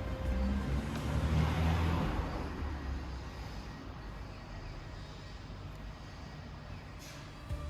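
A motor vehicle's engine noise swells over the first couple of seconds and fades, leaving a steady low hum.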